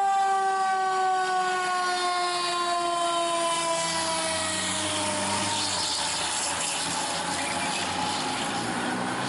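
A fire engine's siren holds one tone that slides slowly down in pitch as it winds down over the first few seconds. It gives way to the truck's diesel engine and road noise as the engine pulls away under power.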